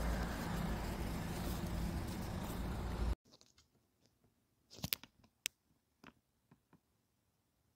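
Steady outdoor noise with a low rumble that cuts off suddenly about three seconds in. Then an orange street cat eating wet cat food from a bowl: a few soft, sparse chewing clicks.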